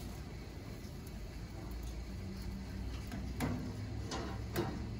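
A few light clicks and two sharper knocks, about a second apart in the second half, as the foil-wrapped pork roast and the metal rack inside a cabinet smoker are handled. A low steady rumble runs underneath.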